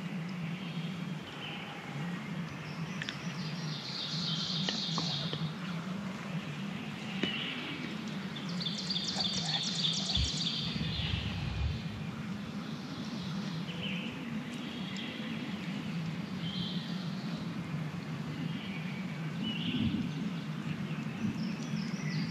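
Songbirds singing in the woods: scattered short high songs and chirps, with a rapid trill about nine seconds in, over a steady low background noise. A brief low rumble comes about ten seconds in.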